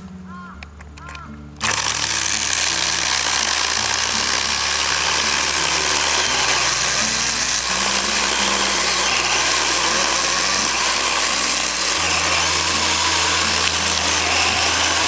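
Kebtek 16.8V cordless handheld mini chainsaw running and cutting through a log, coming in loud about a second and a half in and running steadily after that.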